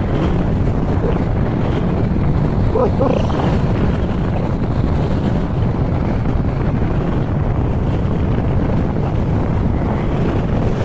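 Steady wind buffeting the microphone of a camera held out from a moving Honda ADV160 scooter, with road and engine rumble underneath.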